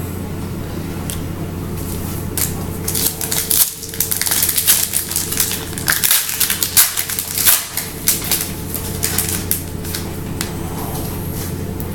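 Foil wrapper of a Donruss Optic baseball card pack crinkling and tearing as it is ripped open by hand, a dense crackle that starts about two and a half seconds in and dies away near the end.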